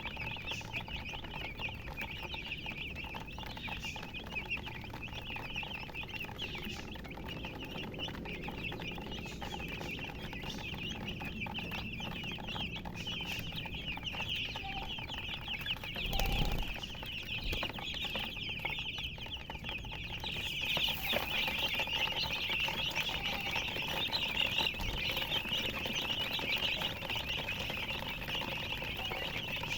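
Many chicks peeping at once, a dense chorus of high, overlapping chirps that grows louder about two-thirds of the way through. One low thump a little past halfway.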